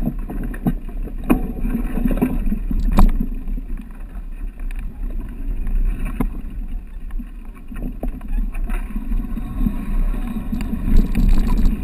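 Mountain bike ridden over a rough dirt trail: wind buffeting the microphone as a low rumble, with scattered knocks and rattles from the bike.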